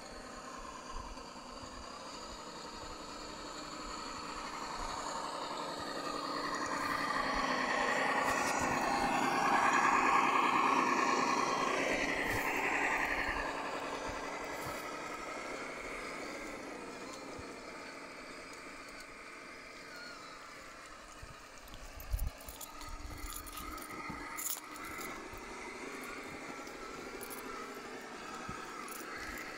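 Radio-controlled Tamiya Toyota Hilux High-Lift crawler's electric motor and gearbox whining, the pitch and level rising and falling with the throttle, loudest about midway. A few sharp clicks and crunches come in the second half.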